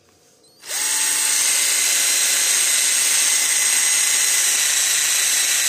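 12 V DC cordless drill switched on under a second in, its motor spinning up quickly and then running steadily with a whine.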